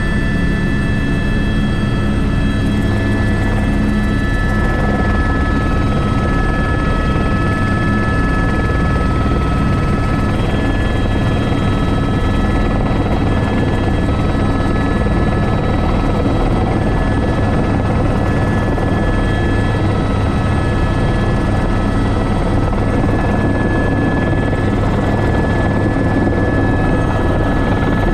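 Airbus H125 (AS350 B3) helicopter heard from inside the cockpit in flight: turbine and main rotor running steadily, a loud, even drone with a steady high whine over it.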